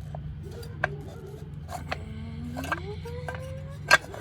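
Sharp metallic clicks and knocks of hand tools working on a dirt bike's engine cover and bolts, about one a second, the loudest near the end, over a steady low hum.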